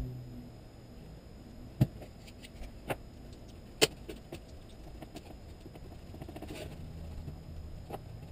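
Small hard objects handled on a workbench: a few sharp clicks and taps, the loudest about two and four seconds in, with a brief rustle later, over a low steady hum.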